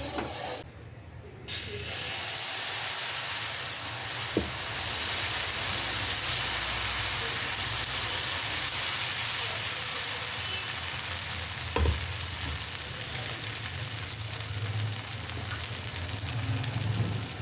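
Food frying in a hot pan: a steady sizzle that starts about a second and a half in, with a couple of light knocks.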